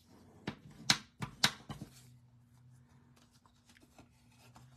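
Cardstock being handled and folded in half: a handful of sharp, crisp paper snaps in the first two seconds, then faint rustling and small taps.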